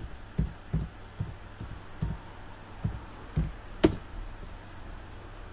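Keystrokes on a computer keyboard, typed slowly at about two keys a second, the last and loudest near four seconds in; after that only a faint low hum.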